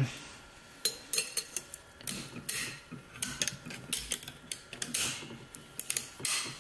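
Steel snap ring being worked by hand into its groove in a 4L80E forward clutch drum, over the pressure plate: irregular light metallic clicks and scrapes.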